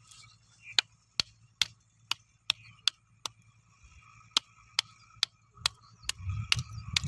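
A run of sharp wooden knocks as a small hard object is tapped against a wooden plank, about two and a half a second. The knocks break off for about a second midway.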